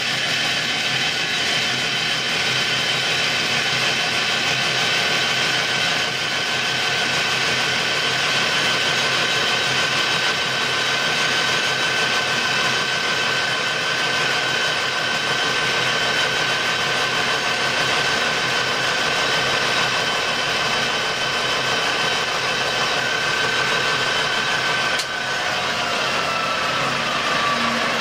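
Colchester Student metal lathe running with a steady whine over mechanical noise as it turns a copper disc on a mandrel. About 25 seconds in there is a click, and the whine then slides down in pitch.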